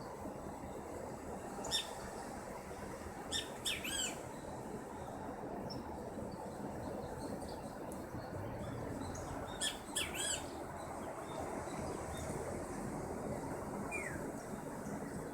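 Birds giving a few short, high calls in scattered clusters over a steady background hiss of outdoor ambience.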